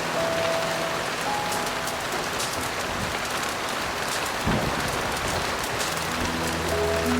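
Heavy rain falling in a steady hiss, with a few faint crackles over it and a soft low thump about four and a half seconds in. Slow piano notes sound briefly at the start and come back near the end.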